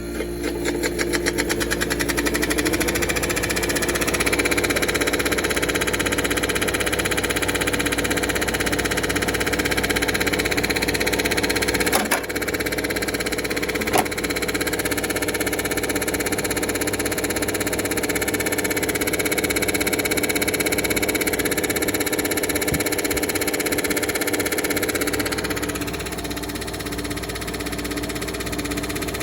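Air conditioner running, its Copeland compressor and fan motor giving a steady hum with several held tones while it blows cold air on a full refrigerant charge. It gets louder about a second in, two sharp clicks come near the middle, and it drops a little near the end.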